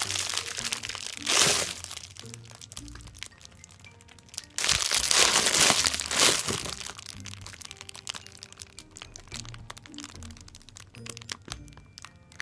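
Plastic packaging crinkling and crackling as a squishy toy is squeezed and handled inside it, loudest in a short burst about a second and a half in and a longer stretch from about four and a half to six and a half seconds in. Quiet background music plays underneath.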